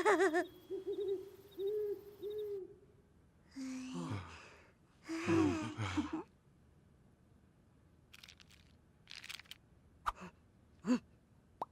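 Wordless cartoon character vocalizations: a run of short hooting hums, then two longer low grumbling voice sounds, then a few short, sharp blips near the end.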